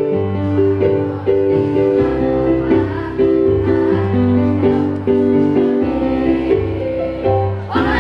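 Schoolgirls' choir singing with a keyboard-style accompaniment: held notes in chords that change every second or so over a steady bass.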